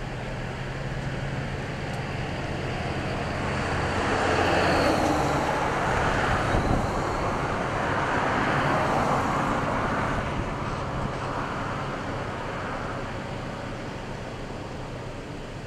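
A vehicle passing by on the road: its tyre and engine noise swells over a few seconds and then fades away, over a steady low hum.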